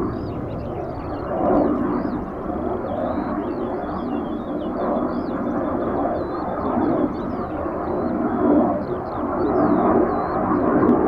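Fighter jet engine rumbling in the distance, swelling and easing unevenly every second or two, with high chirps running over it.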